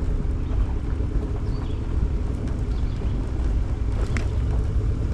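Steady low outdoor rumble of wind and moving water, with a single short knock about four seconds in.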